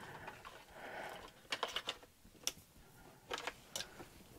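Faint handling noise of electrical wires being gathered up and set down on a rubber-matted workbench: a soft rustle, then a few scattered light clicks and taps.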